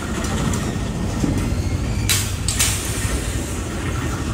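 Low, steady rumble of wind and street noise on a handheld phone microphone carried at walking pace, with two brief swishes about two seconds in.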